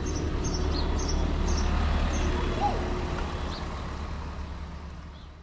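Steady low rumble, with a few short high chirps in the first two seconds, fading out near the end.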